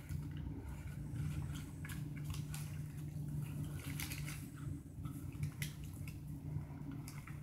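Paper food wrappers and a plastic condiment packet crinkling and crackling in irregular short bursts as the packet is torn open and squeezed, over a steady low hum.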